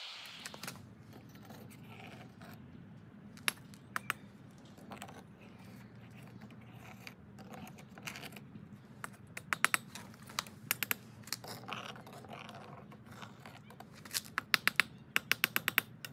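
Steel skimming spoon clinking and scraping against a crucible of molten metal as dross is skimmed off: sharp metallic clicks, a few single ones early and then quick runs of taps near the middle and the end. A low steady hum runs underneath.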